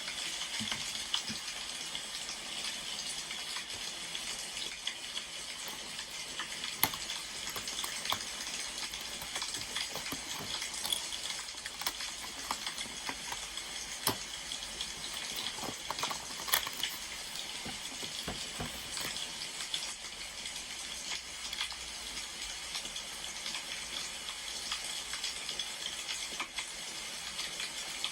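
Wood fire crackling: a steady hiss with frequent small snaps and a few louder pops.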